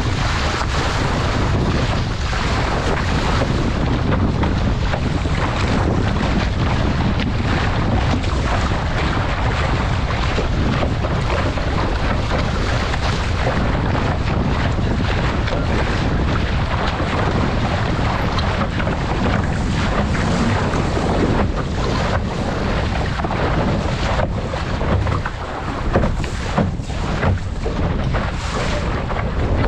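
Wind buffeting the microphone over the steady rush of water along an RS600 dinghy's hull as it sails fast through chop, with a few sharper splashes of spray near the end.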